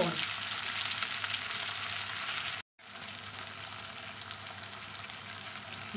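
Potato chunks and fried onions sizzling in hot mustard oil in a kadai, a steady frying hiss. It cuts out for a moment about two and a half seconds in and comes back a little quieter.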